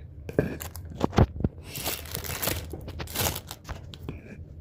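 Irregular knocks and clicks with rustling: handling noise while working on the washer.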